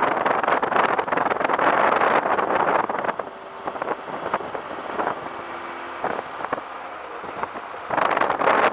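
Wind rushing over the microphone of a moving motorcycle, easing off for about five seconds in the middle so that the Suzuki Bandit 1250's inline-four engine can be heard running underneath, then rising again near the end.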